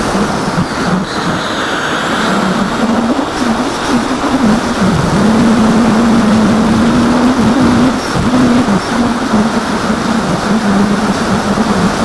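An AXN foam model plane's electric motor and propeller droning, heard from the onboard camera, the pitch wavering with throttle changes: it dips about five seconds in, holds steady, then settles a little lower. Heavy wind rush from the flight runs underneath.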